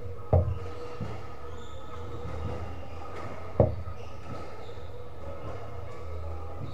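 Squash rally: two loud, sharp knocks of a squash ball being struck, at about a third of a second and about three and a half seconds in, with a few fainter knocks between, over a steady low hum.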